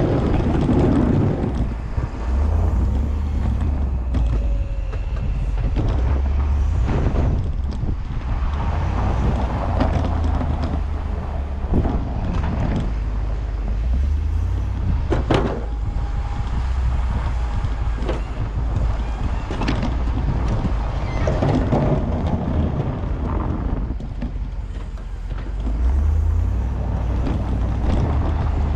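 Wind buffeting the microphone over a vehicle running in the background, a low uneven rumble, with a few sharp knocks along the way.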